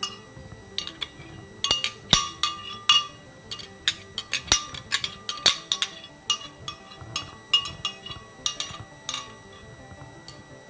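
A metal spoon clinking and scraping against the inside of a glass blender jar in quick, irregular knocks, getting out blended aloe vera gel that comes out in pieces. The knocks thin out near the end.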